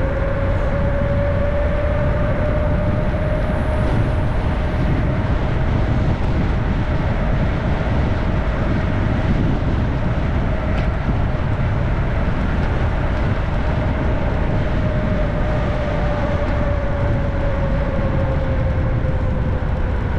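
Wind buffeting the microphone and road noise while riding a bicycle along an asphalt highway, with a steady whine that rises slightly in pitch and then falls back.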